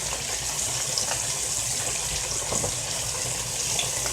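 Steak sizzling in butter in a hot frying pan: a steady hiss with a few small pops.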